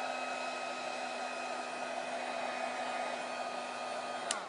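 Heat gun blowing steadily with a motor whine, softening the adhesive that holds a phone's digitizer glass; it is switched off with a click near the end.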